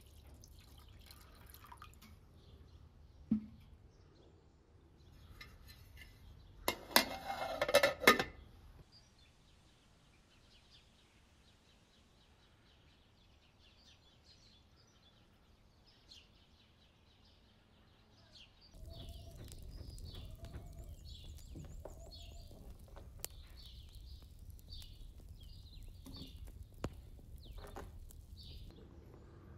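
Water poured from a metal ewer into a pot of lamb meat, with a loud splashing pour lasting about a second and a half around seven seconds in. Then birds chirping, and from about nineteen seconds a steady low rushing noise under the birdsong.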